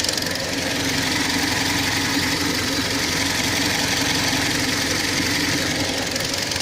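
Kia Sportage III engine running steadily at idle with a strange rapid knock, whose cause the owner does not know.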